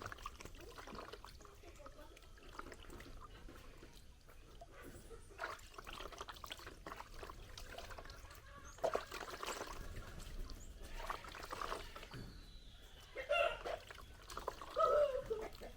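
Water pouring and trickling while hands are washed, with scattered small splashes. A few short pitched sounds come near the end.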